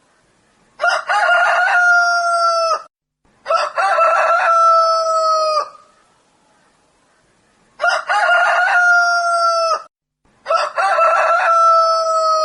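Rooster crowing four times in two close pairs. Each crow is about two seconds long and ends on a long held note that drops in pitch at the end.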